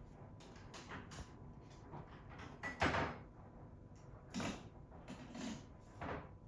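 A Pomeranian puppy moving about and jumping: a handful of short thumps and scuffs from its paws and body, the loudest about three seconds in.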